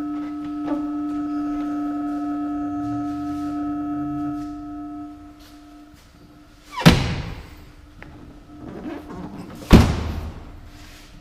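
A sustained musical tone fades out. Then come two heavy thumps about three seconds apart: the pickup's doors being shut.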